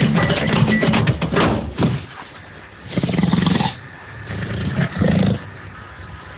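Lion roaring: two deep calls about two seconds apart, following drum music that stops about two seconds in.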